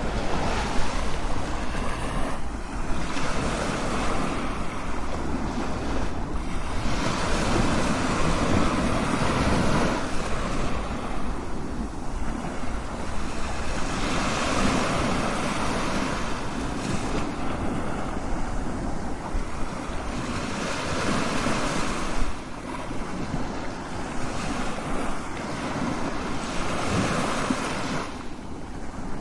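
Strong ocean waves breaking and washing in, a continuous roar of surf that swells and eases every few seconds, with wind.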